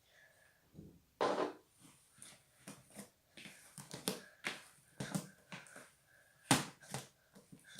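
A large batch of homemade slime being worked by hand, giving irregular wet clicks and squelching pops as it is pressed and pulled. The loudest pops come about a second in and again near the end.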